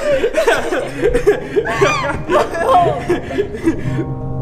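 Women sobbing and wailing, a rapid run of broken crying sounds that rise and fall in pitch. A low steady tone comes in about a second in, and sustained music chords enter near the end.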